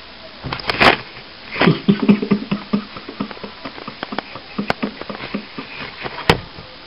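Quick, irregular scuffling taps and scrapes with a few sharper knocks: a cat pawing and scrambling about on carpet.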